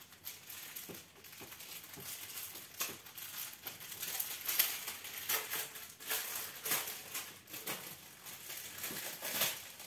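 Small plastic bags of diamond-painting drills crinkling and rustling as they are handled, in irregular crackles.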